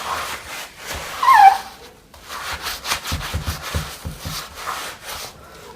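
Bristle brush scrubbing the soapy, wet Boost foam midsole of a sneaker in quick repeated strokes. About a second in there is a short high squeak, the loudest sound.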